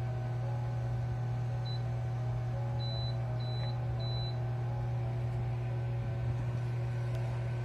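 Four high beeps from the Teka MWL32BIS microwave's touch-control panel, starting about two seconds in: a very short one, then three longer ones in quick succession, as keys are pressed. A steady low hum runs underneath.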